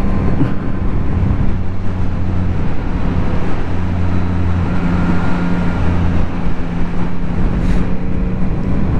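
Yamaha MT-09's inline three-cylinder engine running at a fairly steady road speed, with a constant rush of wind and road noise.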